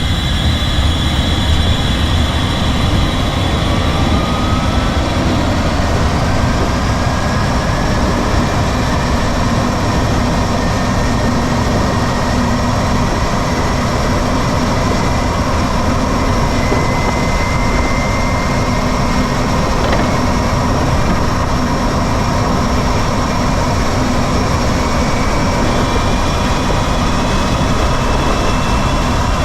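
DC electric motor of a converted VW running under drive, its thin whine slowly rising in pitch as the car gains speed, over a steady loud low rumble of road and wind.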